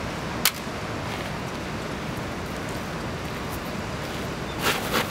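Steady outdoor background hiss, with one sharp click about half a second in and a few short knocks or rustles near the end.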